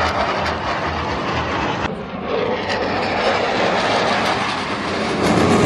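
Jet engines of a formation of Hawk jet trainers flying past overhead: a loud, steady rushing noise that swells toward the end.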